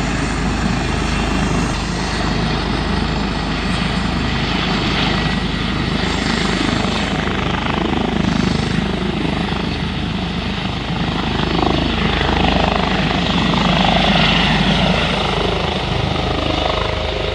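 Airbus H145 air rescue helicopter running with its rotor turning, then lifting off. The steady rotor and turbine noise swells a little about twelve seconds in as it climbs away.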